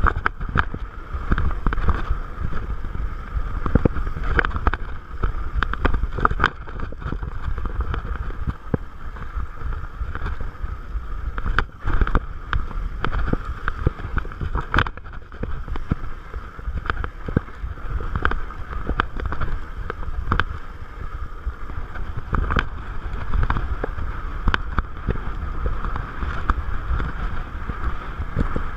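Salsa Bucksaw fatbike rolling fast down a bumpy dirt singletrack, with wind rumbling on the camera microphone. The bike rattles and knocks sharply again and again as it bounces over the rough trail.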